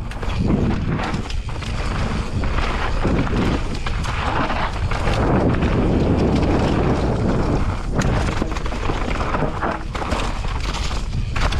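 Mountain bike riding down a dirt trail: wind rumbling on the microphone, tyres running over the dirt, and frequent knocks and rattles from the bike over bumps.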